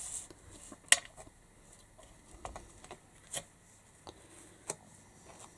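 Scattered light clicks and taps of hands handling ribbon and card on a craft table, the sharpest about a second in, then a few softer ones spaced out.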